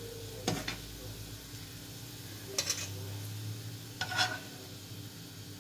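Food sizzling in a frying pan while being stirred, with a utensil clattering against the pan three times.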